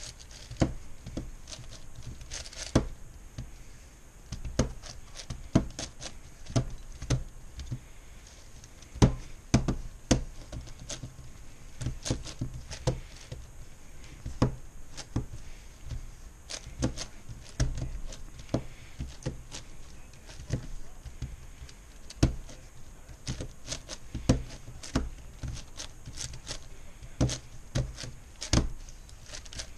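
MoYu Meilong 10x10x10 plastic puzzle cube being turned one-handed: irregular clicking and clacking of its layers, with a louder clack every half second to a second.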